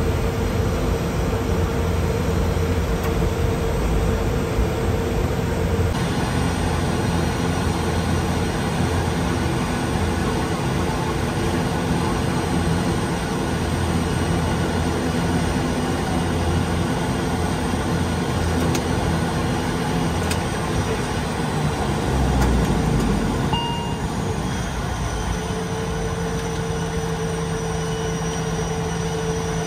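Steady running noise of an ATR 72's turboprop engines and propellers, a loud even roar with a low held hum. The sound changes abruptly about six seconds in and shifts again in the last few seconds, where a steadier hum settles in.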